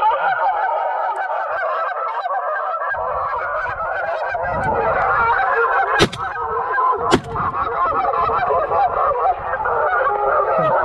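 A dense, unbroken chorus of geese honking, with two shotgun shots about a second apart a little past the middle.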